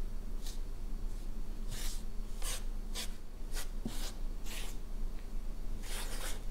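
A whisk swishing and scraping through dry flour and cocoa powder in a bowl, about eight scratchy strokes at an uneven pace, over a steady low hum.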